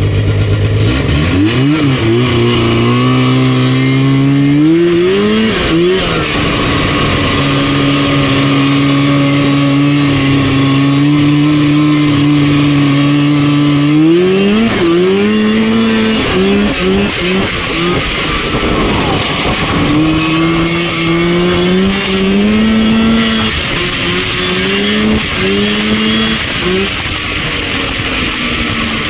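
Rotax 503 two-stroke twin-cylinder snowmobile engine under way. It revs up over the first few seconds, then holds a steady pitch for about eight seconds. After that the throttle blips up and down several times, the pitch drops away briefly about two-thirds through, and it picks up again with the throttle wavering.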